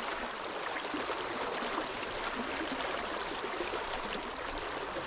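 Steady rush of a fast, high river current.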